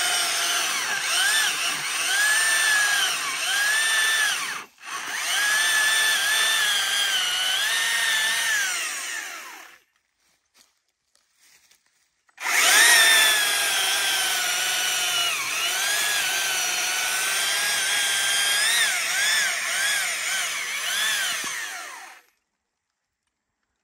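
Stihl MSA 300 battery chainsaw sawing through thick dry logs. Its electric motor whines and dips in pitch each time the chain bogs into the wood, then picks up again. It cuts out for a moment about five seconds in, stops at about ten seconds, starts again after a couple of seconds' pause, and stops near the end.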